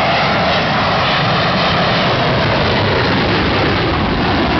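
Loud, steady jet engine noise of a twin-engine fighter jet flying overhead in a climbing turn.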